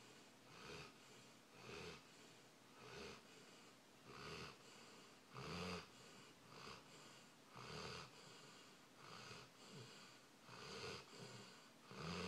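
A sleeping pet snoring faintly, a short snore about once a second, some breaths louder than others.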